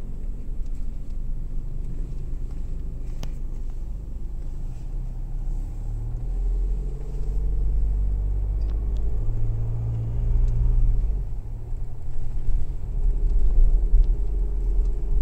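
Car engine and road noise heard from inside the cabin while driving: a steady low rumble that swells slightly a few times, with a faint tick about three seconds in.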